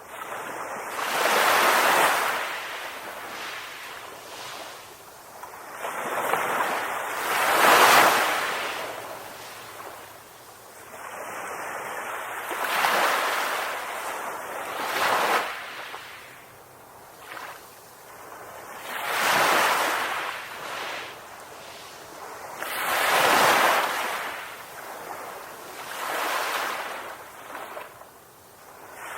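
Sea waves breaking on a beach, surf swelling and washing back in surges every few seconds.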